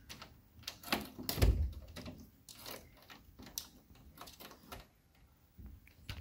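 Scattered clicks and knocks, with one louder, deeper thump about a second and a half in.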